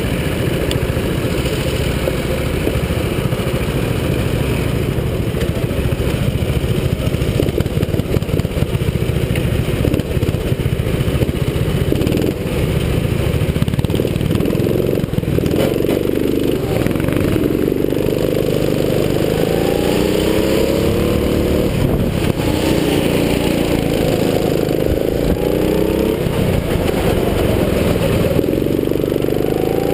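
270cc four-stroke go-kart engines running at idle, then from about halfway through the kart's engine revs up several times, its pitch rising with each acceleration and dropping back between them.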